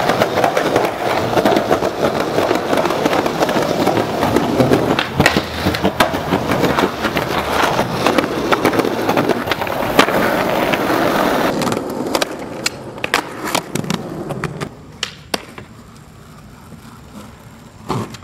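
Skateboard wheels rolling on concrete, with sharp clacks from the board hitting the ground. About eleven seconds in the rolling noise drops away and only scattered clacks remain, and it goes quieter again a few seconds later.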